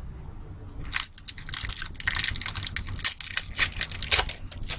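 Foil trading-card pack wrapper crinkling and crackling as it is handled and torn open. It starts about a second in as a quick run of crackles and keeps on until near the end.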